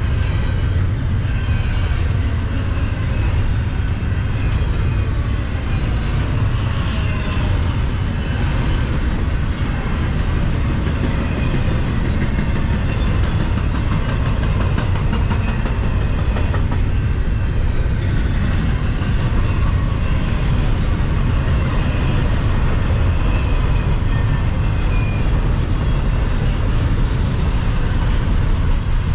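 Double-stack intermodal freight cars rolling past: a steady, loud rumble of steel wheels on the rails with wheel clatter and faint high squeals now and then.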